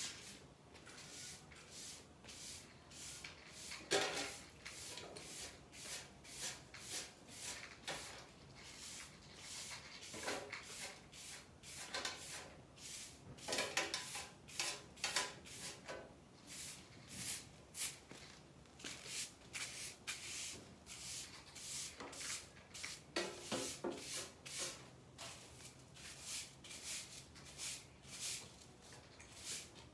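Cats chewing food from their bowls: quick, irregular crunching clicks, several a second.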